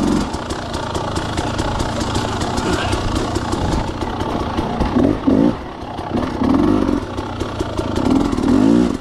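KTM 300 XC-W two-stroke dirt bike engine pulling at low speed. In the second half it gives several short throttle blips that rise and fall in pitch.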